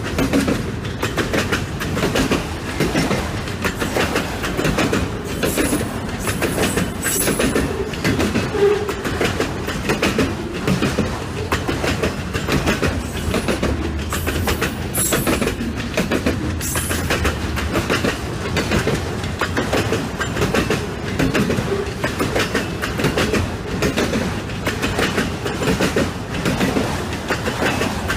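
Auto-rack freight cars of a unit train rolling past, wheels clicking over the rail joints in a steady rhythm, with a couple of brief faint high wheel squeals.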